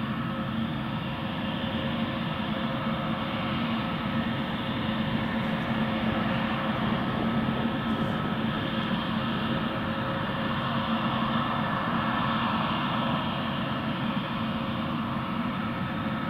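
Airbus A321neo's Pratt & Whitney geared turbofan engines on final approach with gear down: a steady, distant jet rumble carrying a faint steady hum, growing slightly louder over the first several seconds as the aircraft nears.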